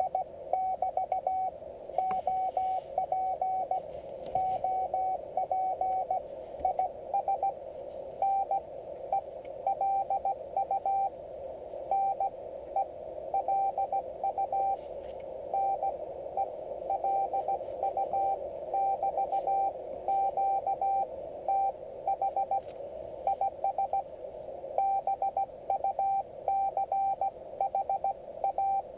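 Morse code (CW) being received on a Yaesu FT-817ND transceiver: a single steady-pitched beep keyed in dots and dashes, over a continuous narrow band of static hiss shaped by the radio's CW filter.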